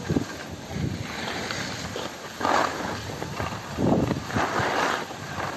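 Skis scraping and hissing over packed, tracked-up snow on a downhill run, in uneven swishes. The loudest come about two and a half seconds in and again around four to five seconds in.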